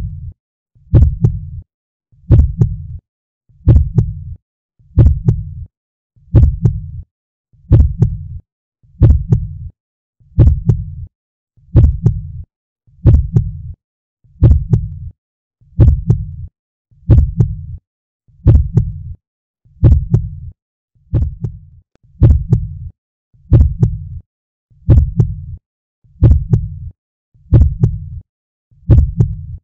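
A slow, even thumping beat, about one a second. Each thump is deep and has a sharp click at its start.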